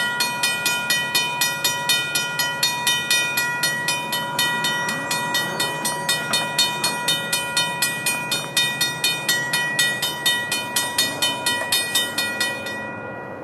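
Railroad grade-crossing bell ringing in a fast, even run of about three strikes a second. It stops near the end, with a low rumble underneath.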